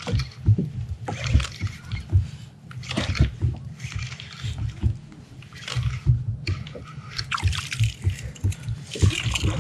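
Water splashing irregularly beside a kayak as a hooked salmon thrashes near the surface during the fight, with scattered knocks.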